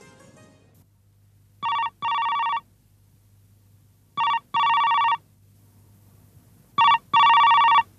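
Desk telephone ringing with an electronic ring three times, about two and a half seconds apart. Each ring is a short burst followed at once by a longer one.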